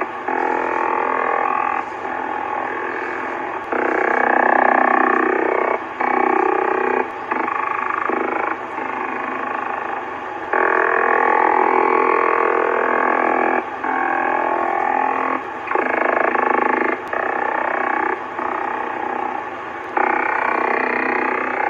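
Warbling signal coming through the speaker of an ICOM IC-720A HF transceiver tuned to the 27 MHz band in lower sideband: a dense band of wavering, sweeping tones that changes character abruptly every one to three seconds. The owner takes it for a low-frequency over-the-horizon radar.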